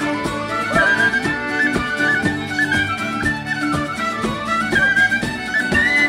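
A traditional Irish band playing an instrumental tune: a quick, stepping melody over a steady strummed rhythm.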